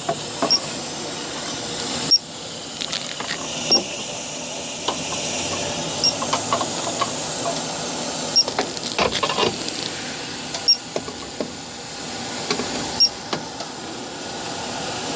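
Electronic refrigerant leak detector beeping, a short high beep about every two seconds at an even slow rate with no leak alarm, over a steady hiss and the rattle of handling as the probe is worked around the indoor coil.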